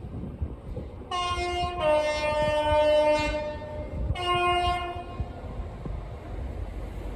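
A train's two-tone horn sounding high then low, then a short high note again, over the low rumble of the train running.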